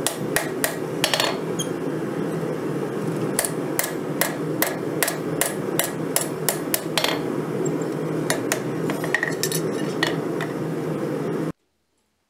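Hammer blows on red-hot 5160 steel on an anvil: sharp metallic strikes in runs of two to three a second, over a steady rushing noise. All sound stops abruptly near the end.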